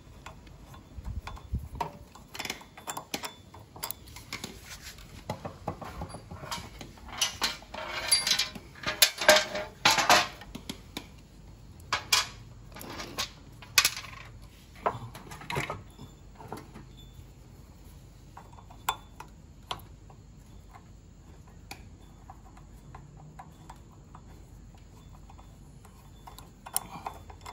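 Small steel bolts and washers clinking and an Allen key tapping on metal as bolts are undone and handled, some dropped into the removed metal side cover. The clinks come in clusters, busiest in the first half, then only a few scattered ones.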